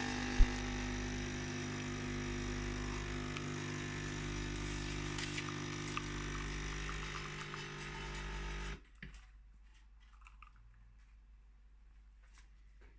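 Nespresso Creatista Plus coffee machine's pump running with a steady hum. It stops suddenly about nine seconds in, and a few faint clicks follow.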